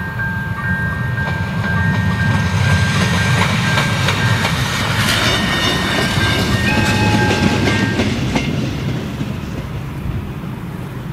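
Regional passenger train passing, its low engine rumble and wheel clatter on the rail joints swelling to a peak mid-way and then fading as it moves off. Above it, a level-crossing warning signal sounds repeating electronic tones that stop about 8 seconds in.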